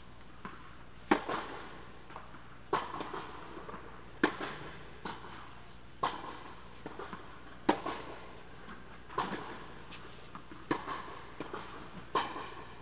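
Tennis rally under an indoor court's dome: sharp racket-on-ball hits about every one and a half seconds, with smaller ball bounces between them, each knock echoing briefly.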